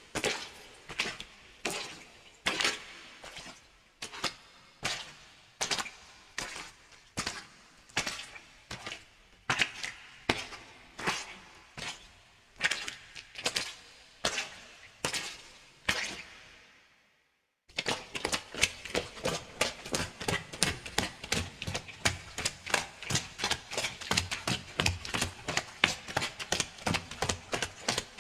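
Footsteps of leather shoes in puddles, walking at a steady pace. About 17 seconds in they fade out and break off for a moment, then come back as a faster, denser run of steps.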